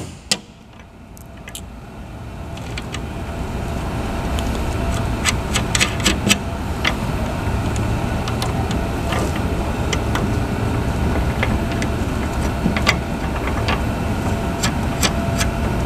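A low, steady rumble swells up over the first few seconds and then holds. Over it come scattered sharp clicks and taps of bolts and metal door-frame hardware being handled and fitted.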